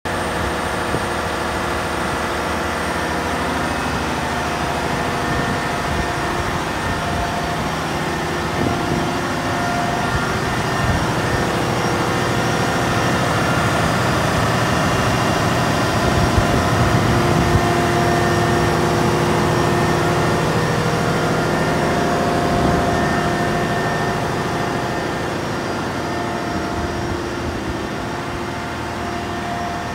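Caterpillar 740B articulated dump truck's C15 diesel engine idling steadily, growing somewhat louder through the middle and easing off near the end.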